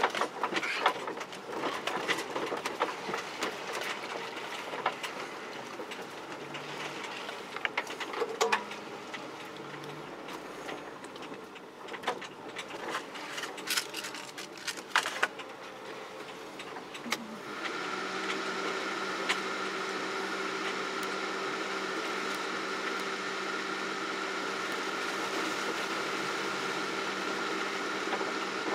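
Off-road vehicle driving along a rutted forest track, with irregular knocks and rattles as it rides over the bumps. About two-thirds of the way through, this gives way to a steady, even hum of constant pitch.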